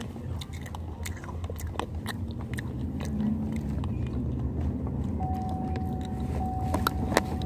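Crisp crunching bites and chewing of dried banana chips close to the microphone, over the low rumble of a car's cabin. A steady high tone comes in about five seconds in.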